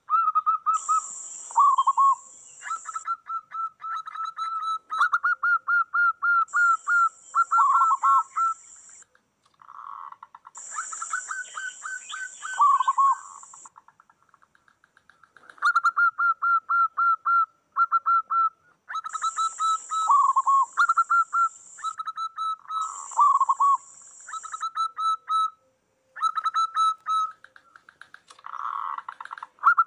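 Several zebra doves cooing over and after one another, each phrase a rapid staccato run of notes that ends in lower, dropping notes, with short pauses between phrases. A high steady buzz comes in several times for a second or two at a time.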